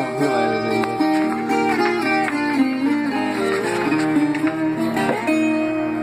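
Acoustic guitar playing an instrumental passage: plucked melody notes moving over chords, with no voice.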